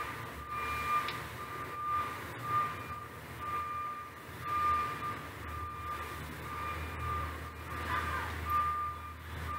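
Single-pitch electronic beeps repeating about once a second, over a steady low engine rumble: a vehicle's reversing alarm.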